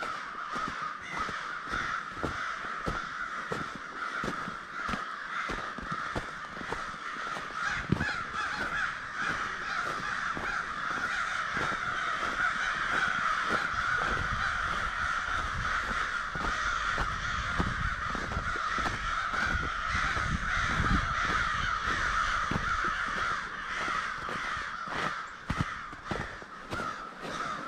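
A large flock of American crows cawing continuously, dozens of overlapping calls massed into one din, as a winter gathering of crows keeps building.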